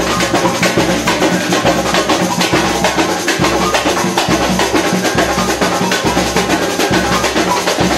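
Samba music with heavy drums and percussion keeping a steady beat.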